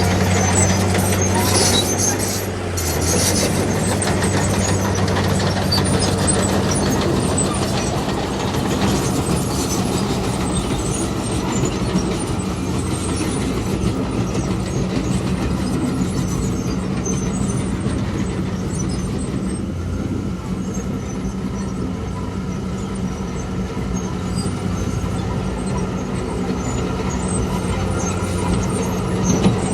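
Heavy diesel earthmoving machinery running steadily, with a loud clattering and scraping over the engine hum, busiest in the first few seconds.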